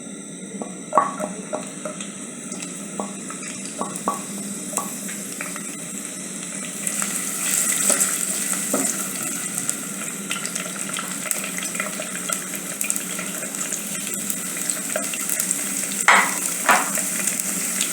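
Onions frying and sizzling in a pan while being stirred with a utensil. The sizzle grows louder about seven seconds in, and there are light clicks of the utensil against the pan, with two stronger scrapes near the end.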